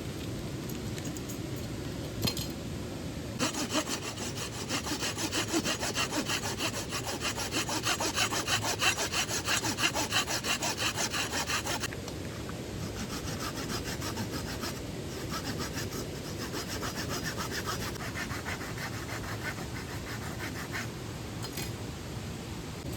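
Hand saw cutting firewood with quick, even back-and-forth strokes: a loud bout from a few seconds in to about halfway, then a quieter stretch of sawing that stops near the end.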